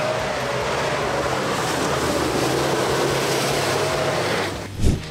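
4x4 pickup truck's engine working as it climbs a rocky off-road trail and drives close past, tyres rolling over stones and dirt. One sudden loud thump comes near the end.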